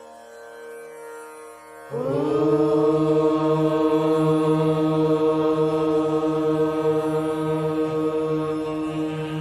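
Instrumental music from a devotional prayer song. A quiet held drone note gives way, about two seconds in, to a loud sustained chord that holds steady.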